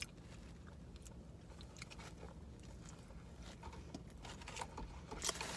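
A person chewing food close to the microphone: faint, scattered mouth clicks and smacks, more of them near the end.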